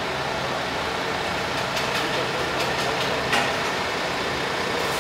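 MAN heavy truck's diesel engine running at idle as the tractor unit creeps forward slowly, with a few sharp clicks about two seconds in and a louder one about three and a half seconds in.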